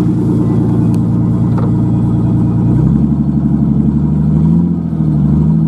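1995 Ford Ranger V6 idling through newly fitted custom dual exhaust pipes with no muffler, a steady exhaust rumble. About three seconds in, the idle note drops and then wavers a little.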